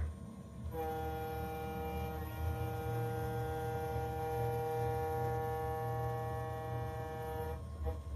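6040 CNC router spindle running a 3 mm endmill through 304 stainless steel during adaptive roughing: a steady whine of several held tones that starts under a second in and stops shortly before the end, over a low hum.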